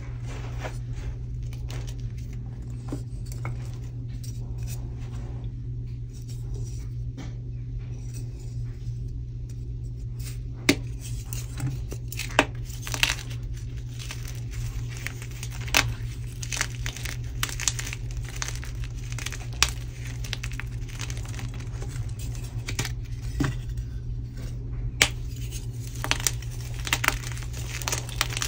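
Bare hands crushing and crumbling gym chalk: a steady crunchy crumble of powder and small chunks, with a sharp crack every few seconds as pieces of a dyed chalk block snap in the fist. A low steady hum sits underneath.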